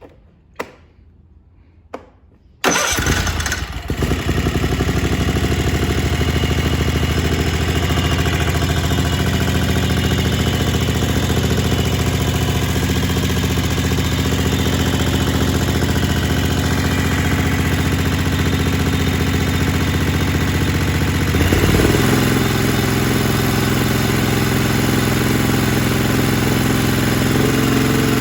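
A Kohler Command 20 hp lawn tractor engine: a couple of clicks, then it starts about two and a half seconds in and runs steadily. Its speed changes once, about three-quarters of the way through. It is holding an even speed, running fine instead of racing wide open.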